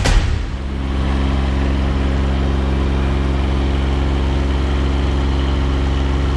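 The aerial lift's on-board engine running steadily at a constant speed with an even, unchanging hum, fading in over the first second.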